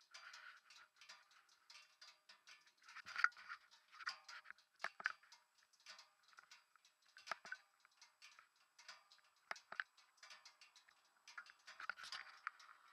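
Faint handling noise from fingers on the camera close to its microphone: scattered small clicks, taps and rustles, with a few sharper ticks.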